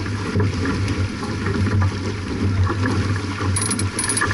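Steady rushing noise with a pulsing low rumble aboard a J/24 racing sailboat under way: wind on the microphone and water along the hull.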